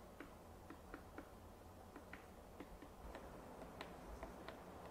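Quiet outdoor ambience with faint, irregular sharp ticks and clicks, a few a second.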